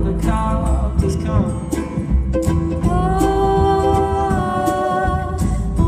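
Live folk band playing: upright bass and drums under strings and singing, with long held notes through the second half.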